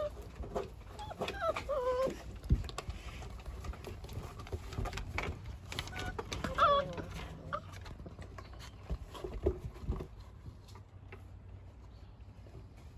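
Shepherd–Husky mix puppies play-fighting, giving short high squealing yips about a second in and again around the middle, with scattered clicks and knocks of paws and claws on wooden deck boards.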